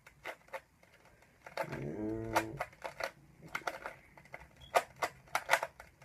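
Rubik's cube being turned by hand: irregular sharp plastic clicks of its layers snapping round, coming fastest in the second half, as the solve is being finished.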